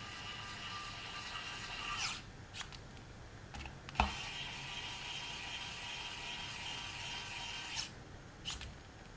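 Small low-torque electric screwdriver driving screws, its motor whining steadily until about two seconds in and again for about four seconds from around the middle. Light clicks sound between and after the two runs.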